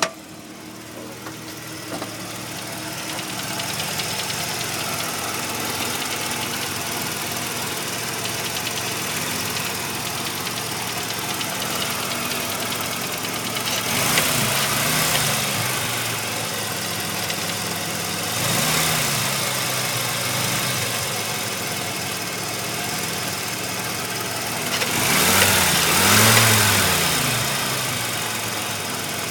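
1985 Mazda RX-7's rotary engine idling warm with a knock, which the owner hopes is only a pulley. It is revved briefly three times, the third rev the longest and loudest.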